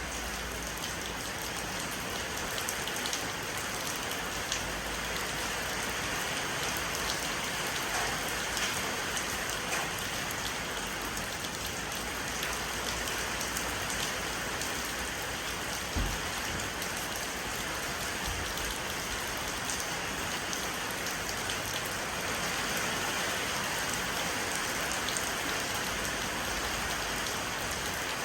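Steady rain falling on an old porch, an even hiss with scattered louder drips. A short low thump sounds about halfway through.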